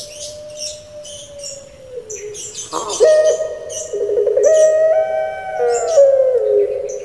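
Puter pelung (domestic Barbary dove) cooing in long, drawn-out notes. The pitch jumps up sharply about three seconds in, is held, and slides down near the end. Short high chirping sounds over it.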